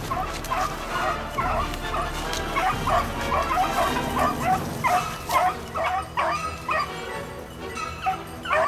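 Beagles baying while running a rabbit's track: a steady string of short, overlapping bawls from several hounds, growing louder from about halfway through.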